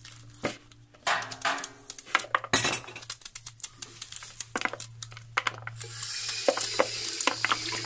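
Kitchen knife cutting a red cabbage held in the hand, a quick irregular series of sharp cuts and clicks as pieces drop into a plastic bowl. About six seconds in, a tap starts running with a steady hiss.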